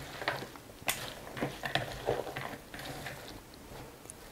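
Oil-dressed seaweed salad with cucumber and bell pepper being stirred in a bowl with a spatula. It makes soft wet scraping and rustling with irregular clicks of the utensil against the bowl, one sharper click about a second in.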